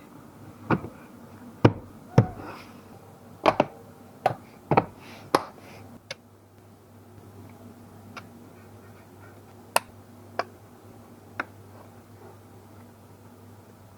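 About a dozen irregular sharp clicks and knocks of hand tools and metal parts being handled while the steering column is put back together. They come thickest in the first half, over a low steady hum.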